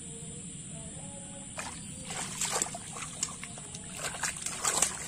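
Hands splashing and sloshing in shallow muddy water while groping for fish. Irregular splashes begin about a second and a half in, and the loudest cluster comes near the end.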